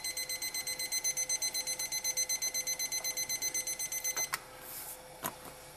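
Digital cooking thermometer's alarm beeping in a fast, steady string, signalling that the water has reached 212°F, the boil. It cuts off with a click about four seconds in, and another click follows.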